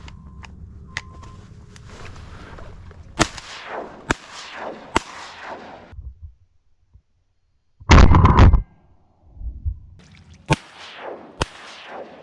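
Shotgun blasts: three shots about a second apart, each tailing off in an echo, then one very loud shot close by that overloads the recording, and two more shots near the end.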